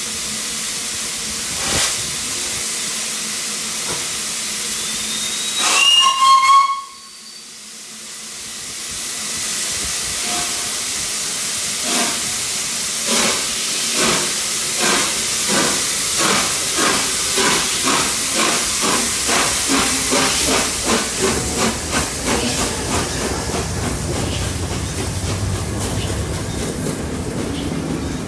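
Three-cylinder A1 Pacific steam locomotive 60163 Tornado starting away. Steam hisses steadily, and a short whistle sounds about six seconds in, after which the hiss cuts off suddenly. The exhaust beats then begin, slow at first and quickening as the engine gets under way, and they fade near the end.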